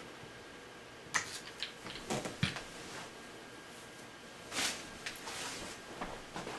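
A few light clicks and knocks from a Taurus 24/7 G2C .45 ACP pistol being handled, spread over a second or so, then a short rustle about four and a half seconds in.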